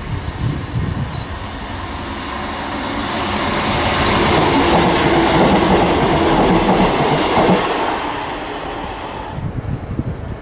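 Northern passenger multiple-unit train running through a station. Its wheels rumble and clack on the rails, growing louder as it nears, loudest as it passes close about 4 to 7 seconds in, then fading. The sound drops away abruptly near the end.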